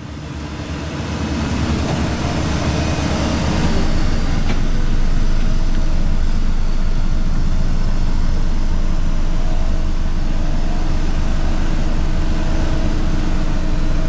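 Diesel engine of a Hamm 3410 single-drum vibratory roller running steadily with a deep, low rumble. The sound fades in over the first few seconds, then holds at a constant level.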